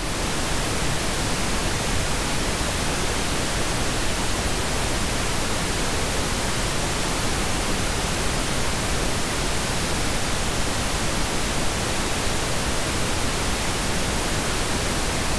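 Steady hiss of static noise, even across all pitches, with no other sound in it.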